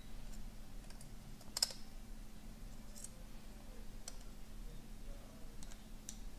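Faint, scattered clicks and taps of small repair tools (tweezers, a precision screwdriver) on the small parts and metal frame of an opened MacBook Air during fan removal. There are about five or six sharp clicks, the loudest about a second and a half in.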